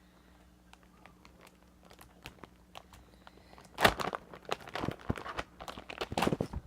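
Things being handled and rummaged through, rustling and crinkling. Faint scattered taps and clicks at first, then louder bursts of crinkling from about four seconds in.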